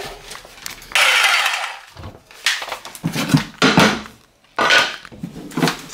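Bosch jigsaw cutting a laminate flooring board, in a run of about a second and then several short bursts.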